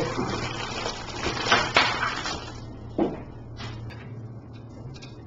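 Clear plastic wrapping rustling as a USB cable is unwrapped and handled, then a sharp click and a few light knocks as the cable is plugged into the base of a Blue Yeti microphone.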